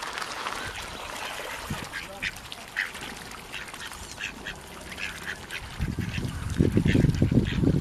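Ducks quacking in many short, repeated calls, with a burst of loud low rumbling in the last two seconds.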